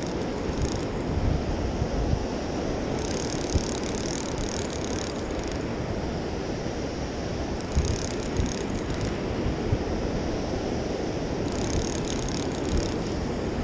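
A spinning reel being cranked in about four short spurts of one to two seconds, its gears whirring each time the line is retrieved, over steady wind on the microphone and surf.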